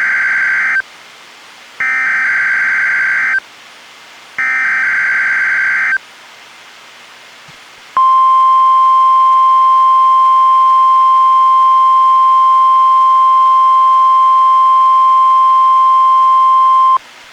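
NOAA Weather Radio Required Weekly Test signals through a Reecom R-1630 weather radio. First comes the EAS/SAME digital header: three bursts of buzzing data tones, each about a second and a half long, the first already under way. About two seconds after the last burst, the steady 1050 Hz alert tone starts and holds for about nine seconds, then cuts off.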